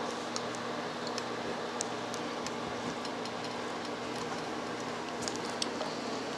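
Faint, irregular clicks and ticks of a puppy's teeth on a hard plastic chew toy, over a steady room hum.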